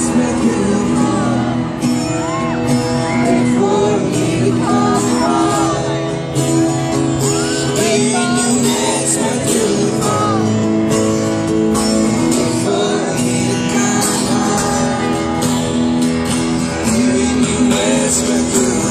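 Live song: acoustic guitar and sustained backing notes with singing over it, and audience voices mixed in.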